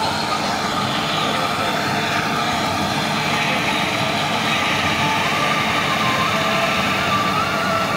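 Massey Ferguson 385 diesel tractor working under load, driving a straw chopper that blows chopped wheat straw into a trailer: a steady, dense mechanical din of engine and chopper.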